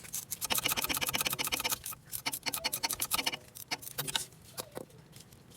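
Ratchet wrench clicking in fast runs, stopping about two seconds in and starting again briefly before only a few scattered clicks are left.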